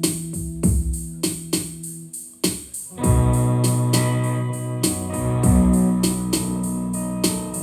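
Instrumental passage of a song: keyboard chords over a steady drum beat, with fuller, held chords coming in about three seconds in.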